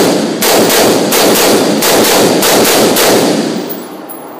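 Rapid gunfire in an indoor shooting range: a quick string of shots, about two or three a second, each followed by a booming echo, stopping a little over three seconds in.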